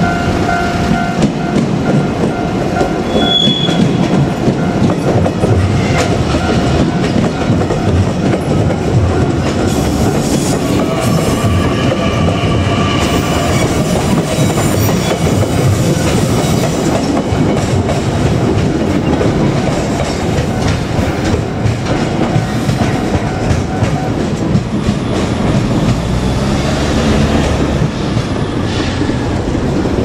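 A four-car JR Kyushu 817 series electric train passing close over a level crossing, its wheels clattering over the rail joints, with a high wheel squeal through the middle as it takes the pointwork. The crossing's warning bell rings steadily under it until about 24 seconds in.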